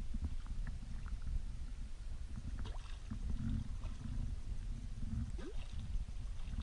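Water and wind noise at the bow of an ocean rowing boat. A low, steady rumble runs throughout, with scattered small splashes and knocks.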